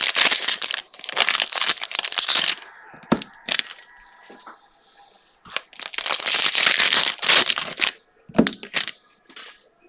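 Foil trading-card pack wrapper being torn open and crinkled by hand, in two long spells of dense crackling with a few short sharp crackles between them and near the end.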